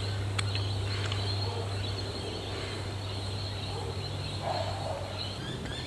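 Insects trilling steadily in the bush at dusk, over a low steady hum that stops shortly before the end.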